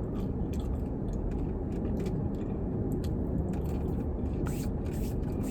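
Car air conditioning blowing steadily inside a parked car's cabin, with scattered small clicks and crinkles from handling food and its packaging.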